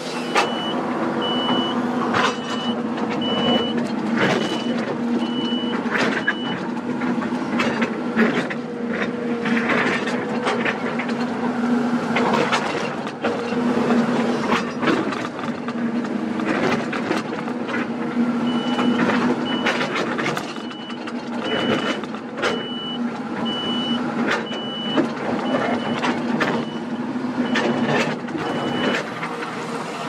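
Kobelco SK200 excavator's diesel engine running steadily under load while the steel bucket digs and scrapes through rock and dirt, with frequent knocks and clatters of stones. A high warning beep repeats a little more than once a second for about the first six seconds, and again from a little past halfway to near the end.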